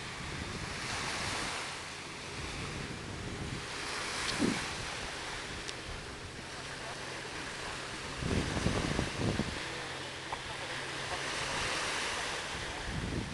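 Small waves washing onto a sandy beach, the surf rising and falling every few seconds. About two-thirds of the way through, wind gusts buffet the microphone.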